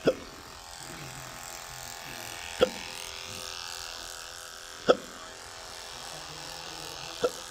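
A man hiccuping four times, about every two and a half seconds, each a sharp, short jolt of the voice: intractable hiccups, a chronic condition. Under them runs a steady faint hum.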